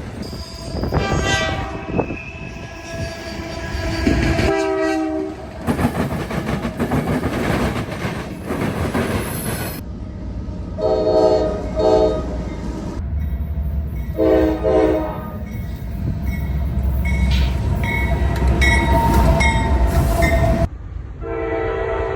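Locomotive air horns sounding a string of blasts, some long and some short in quick pairs, over the rumble and rail clatter of a passing train. The sound changes abruptly several times, as the recording cuts from one horn to another.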